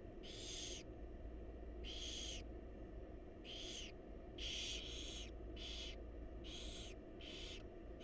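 Barn owls in a nest box giving short rasping hiss calls, about eight in all, coming closer together in the second half, over a steady low hum.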